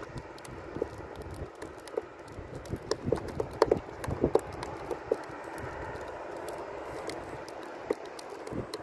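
A scatter of sharp clicks and knocks, thickest about three to four and a half seconds in, over a steady outdoor hiss.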